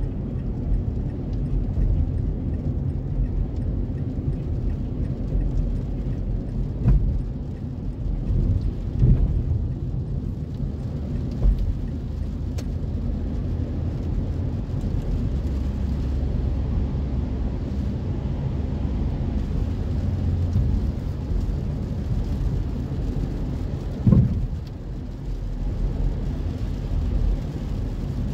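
Inside a car driving on a wet road in rain: a steady low rumble of tyres and engine with rain on the body, broken by a few short thumps.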